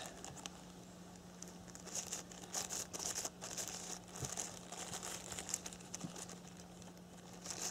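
Small clear plastic bag crinkling and rustling in the hands as it is handled and filled with powder, in irregular spells from about two seconds in.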